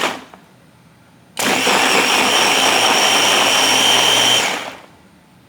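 Personal blender motor running loud and steady for about three seconds, blending a smoothie of frozen bananas, then winding down and stopping. A short burst of sound comes right at the start.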